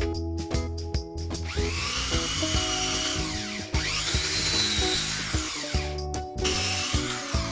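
Background electronic music with a steady beat, held synth notes and two rising-then-falling sweeps in the middle.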